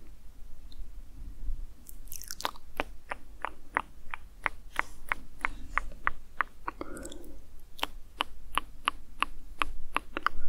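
Close-miked ASMR clicking: a run of sharp, even clicks, about three or four a second, starting about two seconds in, with a short soft rustle partway through.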